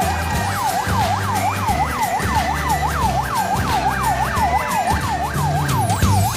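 Electronic yelp siren of a race escort vehicle, sweeping quickly up and down in pitch about three times a second.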